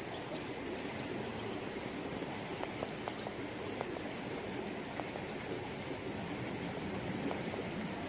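Swift river current rushing steadily past a clump of grass in midstream.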